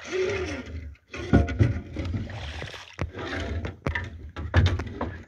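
Rowing sounds from a small wooden sailboat: oars working in their oarlocks and in the water, with several sharp knocks in the second half.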